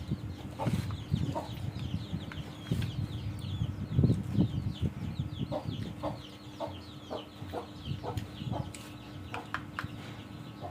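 Chickens clucking in the background, with a stream of short, high, falling chirps throughout and a faint steady hum. There are low knocks, the loudest about four seconds in.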